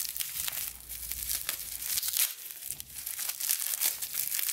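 Plastic bubble wrap crinkling and rustling in a dense, irregular crackle as hands work it open to unwrap a small pair of scissors.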